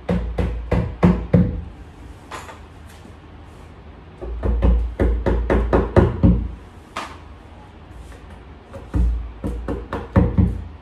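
Hammer striking a flat-pack cabinet panel, knocking parts into it in three runs of quick blows: several at the start, a longer run about four seconds in, and another near the end.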